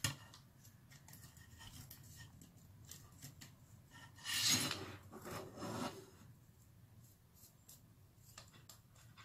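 Hex driver turning a short M3 screw into the center pivot of an X12 RC car's rear pod: faint scraping and small clicks, with two louder rubbing scrapes about four and a half and five and a half seconds in.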